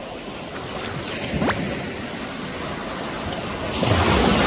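Sea surf washing in on the shore, with a wave breaking loudly near the end.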